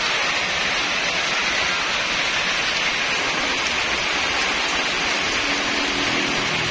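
Rain falling steadily, an even, unbroken hiss of drops.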